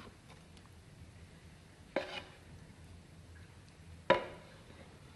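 Two sharp clanks about two seconds apart, a cup measure knocking against a frying pan while scooping curry out of it; the second clank is louder and rings briefly.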